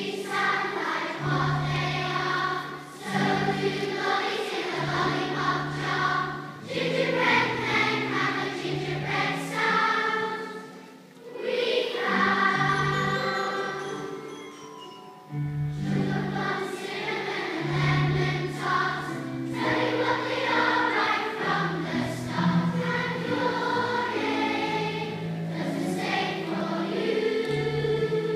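Choir singing a medley, phrase after phrase with short breaks between them, over steady low accompanying notes.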